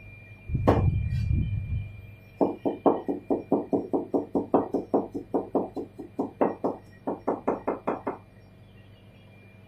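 Cleaver chopping a carrot on a cutting board: a heavy thump about half a second in, then a fast, even run of chops, about five a second, lasting some six seconds.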